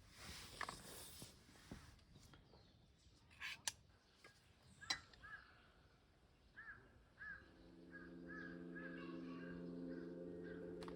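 Near-quiet stretch with a brief rustle and a few light clicks, then from about halfway a run of short repeated bird calls, several a second. Soft background music with a held chord fades in under them.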